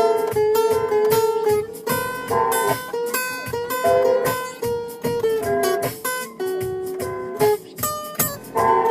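Acoustic guitar playing a plucked melody, several notes a second, each note ringing briefly and fading.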